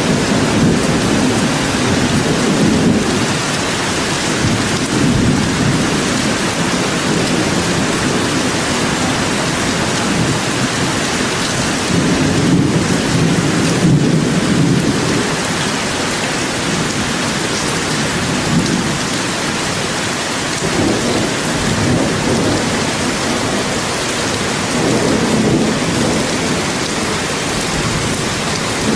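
Steady rain falling in a forest, an even hiss throughout. Underneath it a low rumble swells and fades several times.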